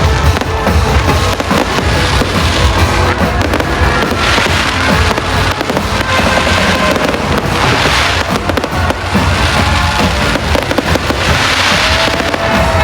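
Fireworks going off in quick succession, dense pops with swells of hissing crackle about four, eight and eleven seconds in. Music plays throughout.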